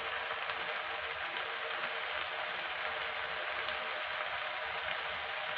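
Macaroni with diced vegetables sizzling steadily in a hot pan, an even crackling hiss.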